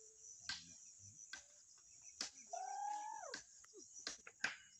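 A wild chicken giving one drawn-out call of under a second, a little past halfway, that holds its pitch and then drops off, among scattered faint clicks.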